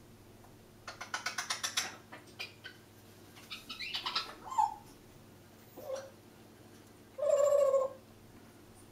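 Congo African grey parrot making clicking and vocal noises: a rapid run of clicks about a second in, then scratchy sounds and short falling calls, and a loud held call near the end, the loudest sound.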